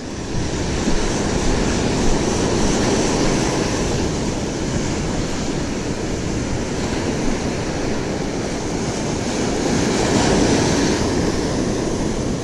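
Shore-break surf washing up the beach, with wind rumbling on the microphone; a wave washes in a little louder about ten seconds in.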